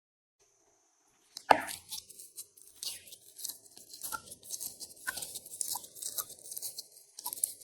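Glossy slime being worked by hand, making irregular crackles and small pops. It starts about a second and a half in with one sharp snap.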